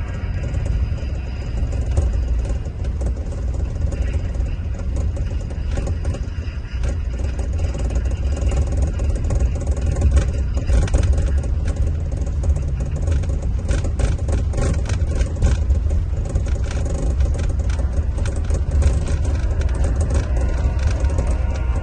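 Scania diesel engine of a Marcopolo Paradiso 1800 DD double-decker coach running steadily under way, a deep continuous drone with many small rattles and knocks over it.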